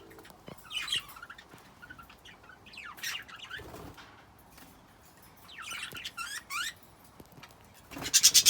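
Birds calling in short, intermittent chirps that sweep up and down in pitch, with a louder burst near the end.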